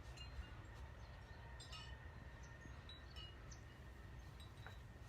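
Faint wind chimes tinkling: a few scattered, short high notes over a low steady rumble.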